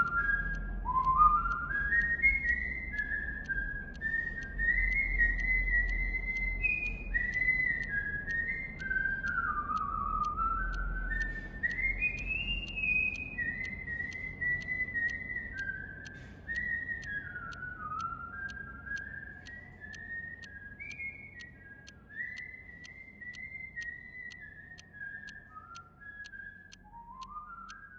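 A person whistling a slow, wandering tune, one clear pitch gliding between notes over a low steady rumble; it grows quieter through the second half and ends on a rising slide.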